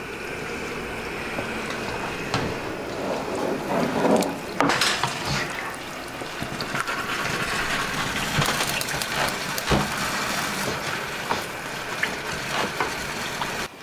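Steady bubbling of pots on the stove as pork leaf fat melts in a stainless steel bowl set over boiling water, with a wooden spoon stirring the soft fat and knocking against the bowl now and then.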